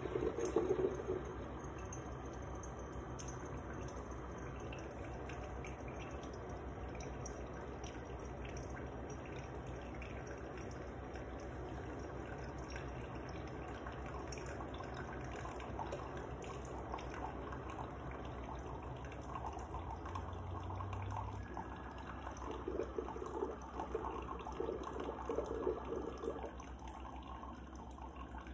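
Ninja 12-cup drip coffee maker brewing: hot coffee dripping and trickling into the cup over a steady machine hum. Near the end it sputters louder in uneven bursts for a few seconds, then eases off.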